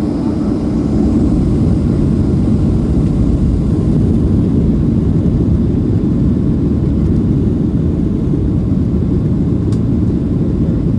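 Steady, loud low rumble of a Boeing 737-700's CFM56 jet engines and airframe, heard from inside the passenger cabin.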